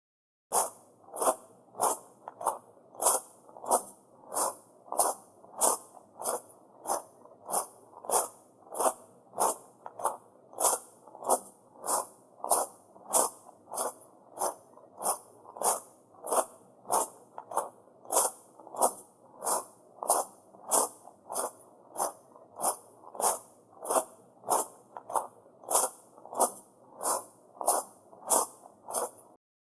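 Footsteps crunching on small rounded gravel (tamajari) at a steady walking pace, about one step a second.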